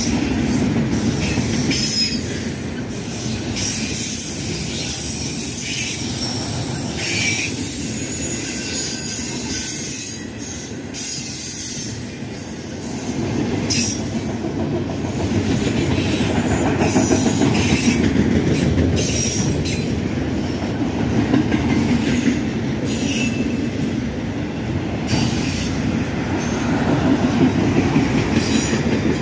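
A freight train of autorack cars rolling past, a steady rumble of wheels on rail with high wheel squeal coming and going over it.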